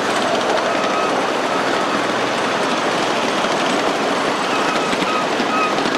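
Cars of a 1.5-inch-scale riding train rolling along the track: a steady rumble and clatter of small steel wheels on rail, with a few brief high squeaks.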